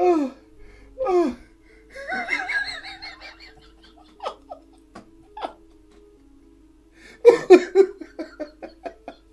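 A man laughing hard. There are high, falling whoops in the first few seconds, then a fast run of short, breathy laughs starting about seven seconds in, over a faint steady hum.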